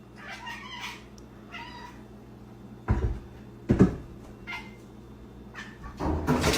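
A cat meowing several times in short calls, with two dull thumps about three and four seconds in.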